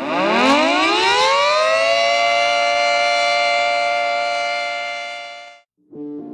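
Civil defense siren winding up from a low pitch to a steady high wail over about two seconds, holding, then fading and cutting off near the end. Music starts just after it stops.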